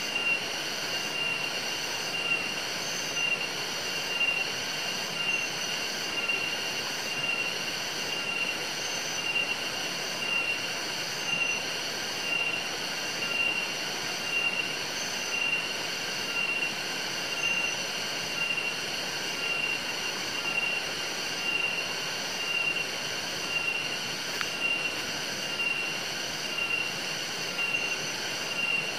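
Forest insects shrilling, a steady high-pitched drone that swells and fades about once a second.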